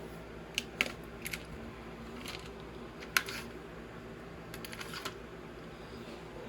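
Small plastic LEGO pieces clicking against each other and the table as they are handled and gathered up: scattered light clicks, the sharpest about three seconds in and a quick cluster near five seconds, over a steady low room hum.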